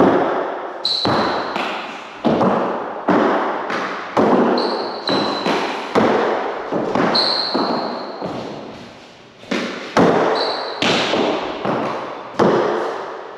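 A small black rugby fives ball, which looks to be a squash ball painted black, slapped by a gloved hand, smacking off the court walls and bouncing on the wooden floor: a rapid, irregular run of sharp echoing hits. A few short high squeaks, from sneakers on the hardwood floor, come between the hits.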